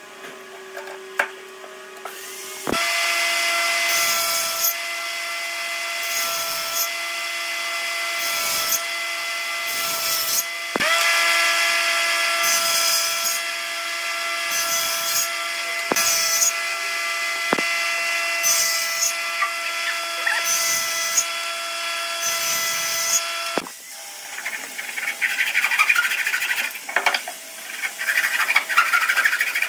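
An electric woodworking power tool starts about three seconds in and runs with a steady motor whine, with a burst of cutting noise every second or two as it bites into the wood. It stops near the end, and irregular scraping and crackling follow.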